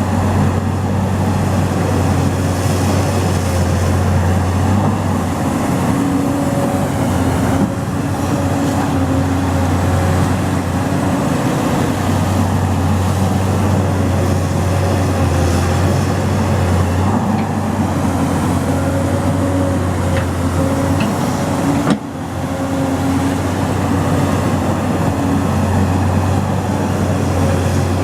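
Excavator's diesel engine running steadily, with a single sharp click and a brief dip in level late on.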